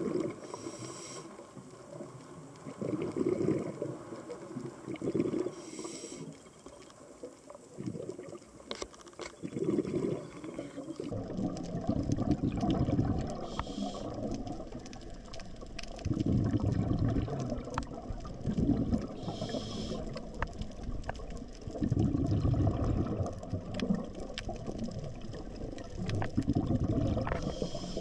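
Scuba diver breathing underwater through a regulator: a short hiss on each inhalation, then a burst of bubbling exhaust, repeating every few seconds, with faint scattered clicks throughout.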